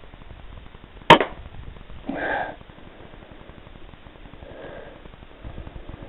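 A single rifle shot at a rat, a sharp crack about a second in. About a second later comes a shorter, duller noise.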